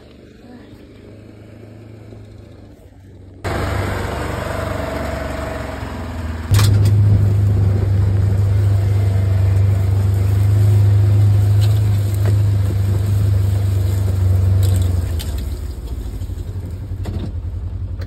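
Side-by-side UTV engine running while driving, heard from the seat as a steady low drone with rattly road noise. It comes in suddenly after a few quieter seconds, grows louder a few seconds later, and eases near the end.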